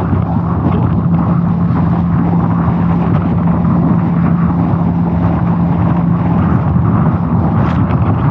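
Small boat's motor running steadily under way, with loud rushing wind and water noise; its steady hum drops away about six seconds in.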